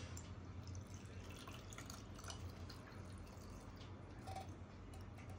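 Milky tea poured from a steel pan through a tea strainer into a cup: a faint trickle with small drips, over a low steady hum.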